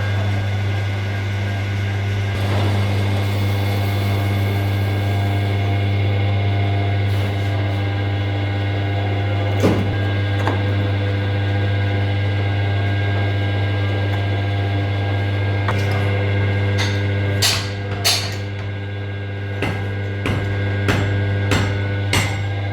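A steady machine hum with several fixed tones runs throughout. About three-quarters of the way in, sharp strikes begin, roughly one or two a second, like a hammer on metal parts during the truck front wheel spindle repair.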